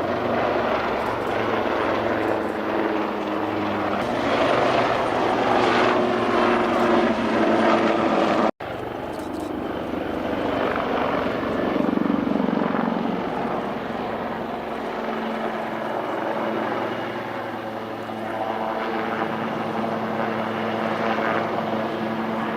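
Two AgustaWestland Wildcat HMA2 helicopters flying a display, a steady whirr of rotors and twin turboshaft engines, a little louder in the first half. The sound cuts out for an instant about eight and a half seconds in.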